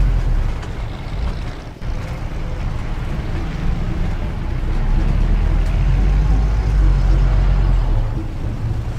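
Street traffic rumbling steadily and low, with motor vehicles and a tram passing. It cuts out briefly about two seconds in.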